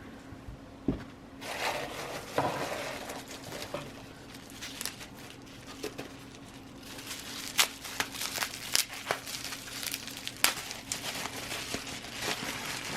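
Packaging crinkling and rustling as items are handled and unwrapped, with a string of sharp little clicks and taps. It starts about a second and a half in and goes on with pauses to the end.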